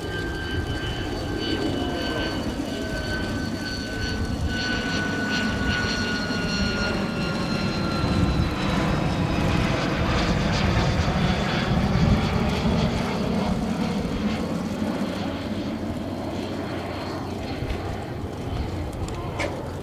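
Lockheed U-2S Dragon Lady's single F118 turbofan on a low flyby. A whine falls slowly in pitch over the first eight seconds, while the jet roar swells, peaks about twelve seconds in as the plane passes, and then eases off.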